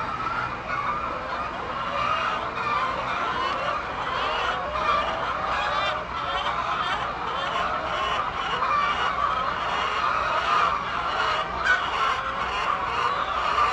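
A flock of poultry calling continuously, many birds' short calls overlapping into a steady chatter.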